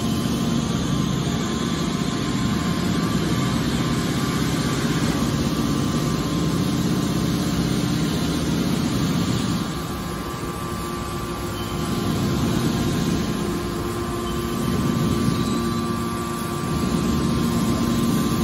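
Hydraulic scrap metal baler running, its motor and hydraulic pump giving a steady hum with a constant whine while the rams compress scrap and push out the bale. The sound drops in level about ten seconds in and again a few seconds later, then rises again.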